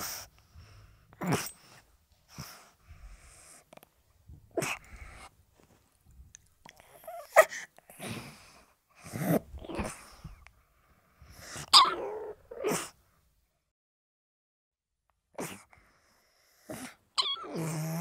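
A pug sneezing and snorting in about a dozen short, sharp bursts with pauses between them, ending in a longer, lower sound near the end.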